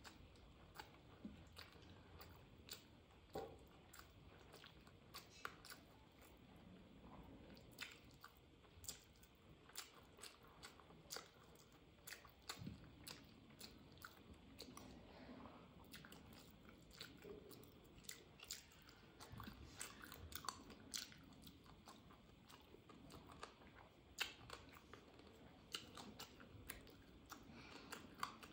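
Quiet close-up sounds of a person eating rice and curry by hand: chewing and lip-smacking, with many small, irregular clicks.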